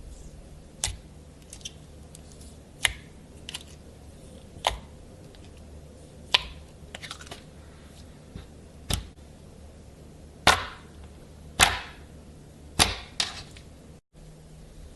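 A series of sharp pops or snaps, about a dozen at irregular intervals, some trailing off in a brief crackle, over a low steady hum.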